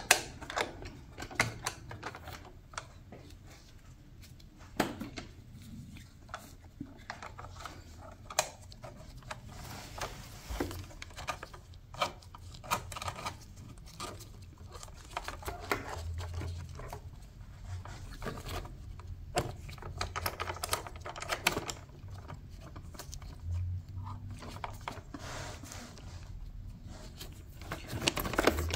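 Irregular clicks, taps and light clatter of bolts and hand tools as mounting bolts are threaded in and snugged up.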